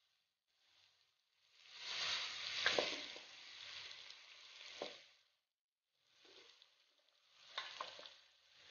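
Marinated chicken dropping into hot oil in a clay pot (mann chatti) and sizzling in two bursts, with a few sharp knocks as it is pushed out of a steel bowl with a spoon.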